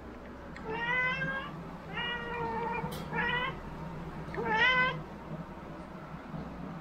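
A domestic cat meowing four times over about four seconds, each call drawn out and clear, with a single short click about three seconds in.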